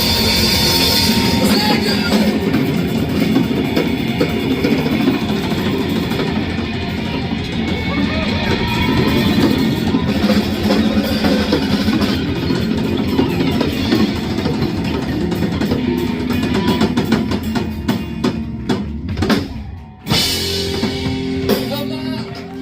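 Live band music with a drum kit and guitar, coming to a close with a final hit about 20 seconds in, after which audience applause and cheering begin.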